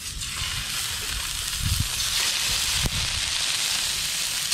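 Crocodile needlefish (houndfish) fillets sizzling as they are laid into hot oil in a frying pan. The sizzle starts as the first fillet goes in and grows louder about two seconds in, with one light knock near three seconds.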